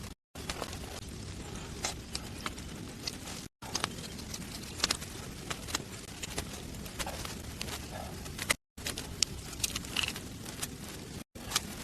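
Steady rushing noise with scattered sharp clicks and knocks, cutting out to silence for a moment four times.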